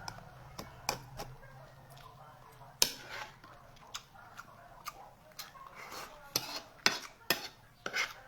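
Spoon and fork clinking and scraping against a plate while eating rice and bitter melon, a series of sharp separate clicks with the loudest about three seconds in and several close together near the end.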